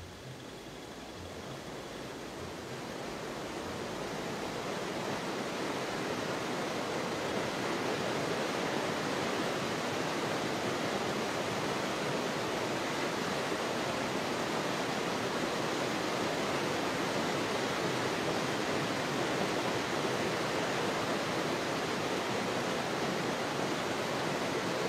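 Steady rushing of river water past a moving boat, swelling in over the first few seconds and then holding even.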